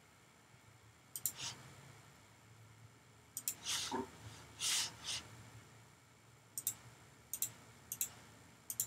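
Quiet, sparse computer mouse clicks, several in quick pairs, with a few soft breaths near the middle.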